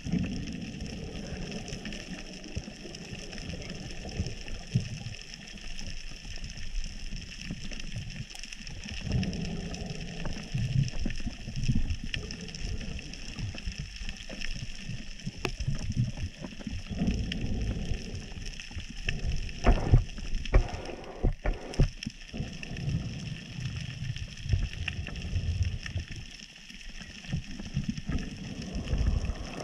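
Underwater reef ambience picked up by a camera in its housing: a steady crackle of snapping shrimp over uneven low rumbling of water moving against the housing, with a louder cluster of rumbles and knocks about twenty seconds in.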